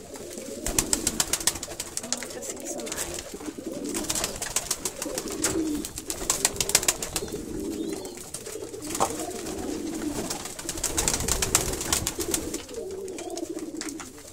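A flock of domestic pigeons cooing continuously while they scramble for food, with several bursts of rapid wing-flapping and scuffling.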